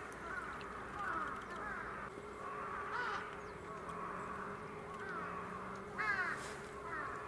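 Wintering waterbirds calling in a chorus: many overlapping short rising-and-falling calls, one louder burst of them about six seconds in, over a faint steady hum.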